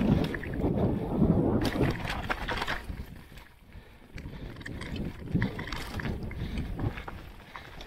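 Mountain bike riding over a rough dirt trail: tyres rumbling and the bike rattling over rocks and roots, with wind on the microphone. It goes briefly quieter about halfway.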